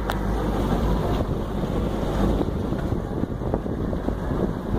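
Wind buffeting the microphone: a steady low rumble with no clear rhythm or tone.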